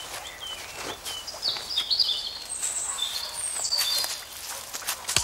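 Several woodland birds chirping and warbling, with scattered crackles and rustles of dry leaf litter and twigs underfoot.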